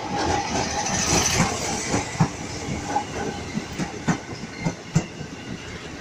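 Ex-JR 205 series electric commuter train passing close by: a steady rumble with a run of uneven sharp knocks as its wheels clack over the rail joints.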